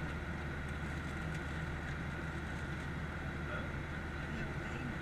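Steady cabin noise of a Boeing 737-800 in cruise: the drone of its CFM56 turbofan engine mixed with the rush of air along the fuselage, heard from a window seat beside the engine.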